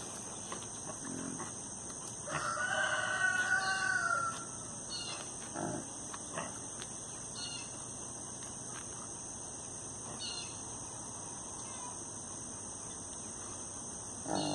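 One drawn-out animal call, about two seconds long, starting about two seconds in, over a steady high hiss; a few faint short knocks follow.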